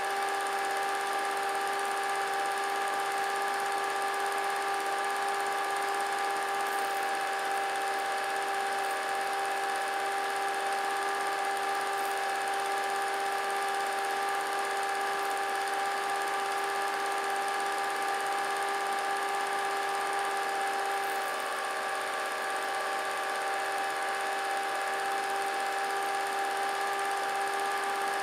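Vintage film projector running: a steady motor whine that holds one pitch, over a hiss.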